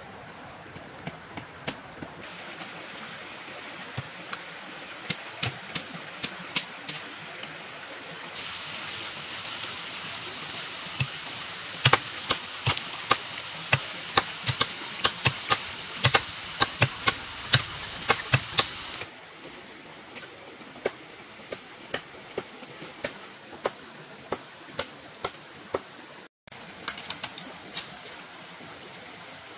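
Many sharp knocks of hand-tool work, coming fastest near the middle at about two to three a second, over a steady rushing of flowing water.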